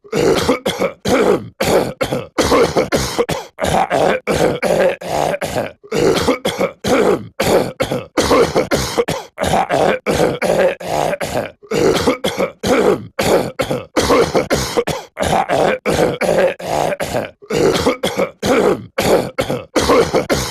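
A cartoon man's voice clearing his throat and coughing over and over, in quick harsh rasps several a second with brief breaks between the runs.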